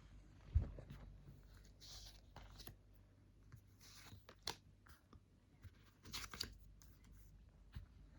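Faint scattered clicks, taps and brief rustles of light handling, with a dull thump about half a second in.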